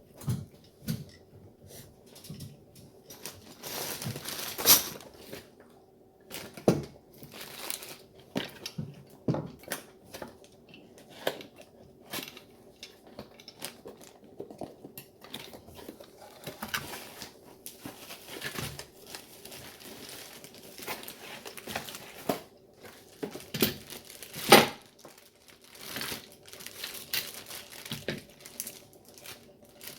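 Packaging crinkling and rustling with scattered clicks and knocks of small parts being handled, irregular throughout, with two louder crackles about four seconds in and near the end.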